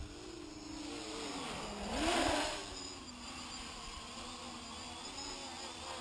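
X525 quadcopter's electric motors and propellers whining in flight, the pitch wavering as the throttle changes. About two seconds in the pitch dips and then rises under a brief louder rushing swell.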